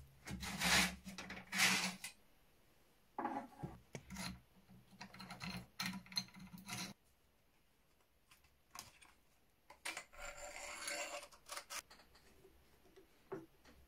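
A rusty Chassepot M1866 rifle being dismantled by hand: scattered knocks, clicks and metal-on-metal rubbing as its parts are handled. Toward the end comes a longer scraping stretch as a screwdriver works a rusted screw.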